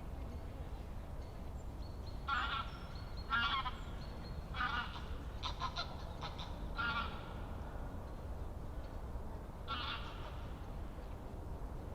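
Birds calling: about seven short, harsh calls at uneven intervals, several bunched in the first half and one more near the end, over a steady low rumble.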